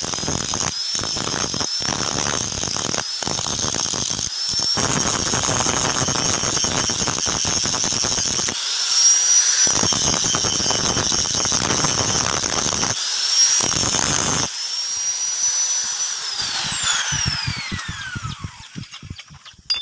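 Angle grinder grinding the edge of a steel cleaver blade: a high whine with a rasping scrape, its pitch dipping and recovering each time the disc is pressed into the steel. Near the end the grinder is switched off and its whine falls steadily as it spins down.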